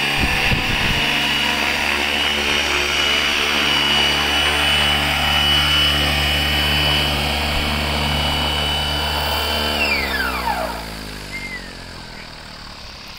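Electric RC helicopter on Flywing FW450 V3 mechanics, with a two-bladed main rotor, running in a low hover with a steady high motor whine and rotor noise; rotor downwash gusts on the microphone in the first second. About ten seconds in, after it lands, the whine and the rotor sound fall in pitch and fade as it spools down.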